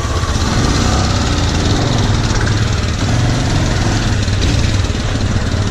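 Motorcycle engine running steadily at low revs as the bike rides slowly.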